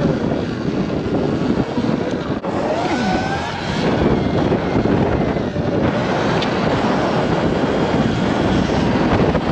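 Steady, loud rushing of wind buffeting the microphone on a moving Sur-Ron electric dirt bike, with faint distant voices.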